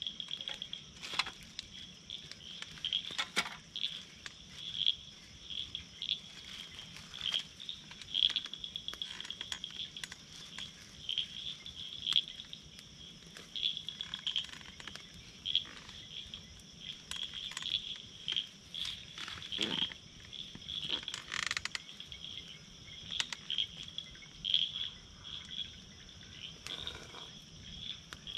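Night chorus of frogs and insects: a steady high buzz with calls pulsing over it, and irregular sharp clicks and crackles scattered throughout, fitting a small twig campfire crackling.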